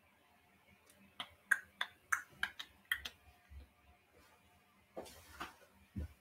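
A quick run of about eight sharp clicks and taps at a computer desk, then a brief rustle and a low thump near the end.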